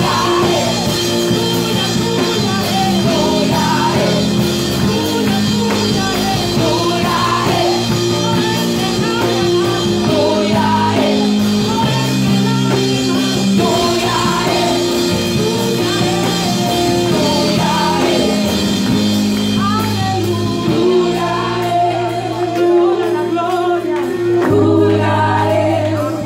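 A woman singing a gospel worship song through a microphone over a loud amplified accompaniment of sustained held chords. The accompaniment thins near the end.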